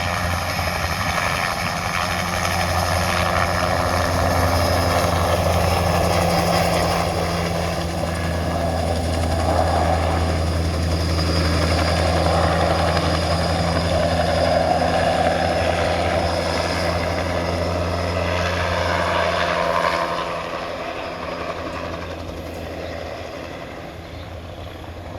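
Crop-spraying helicopter flying over, its rotor and engine loud and steady, then growing fainter over the last few seconds as it moves away.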